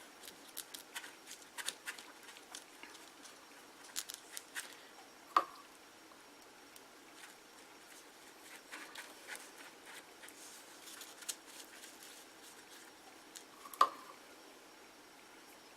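Hand-handling sounds of papier-mâché crafting with glue and cotton: faint scattered clicks and rustles, with two sharp taps, one about five seconds in and one near the end.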